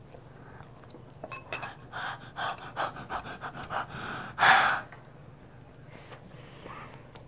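A girl huffing short, quick breaths through her open mouth, about two or three a second, to cool a mouthful of very hot rice. One loud blow of breath comes about four and a half seconds in, and a few short clicks come before the huffing.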